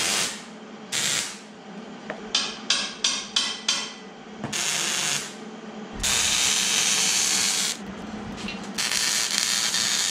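Hand-held power tool run in a string of short bursts, five in quick succession, then in two longer runs of about two seconds each. A steady low hum sits underneath.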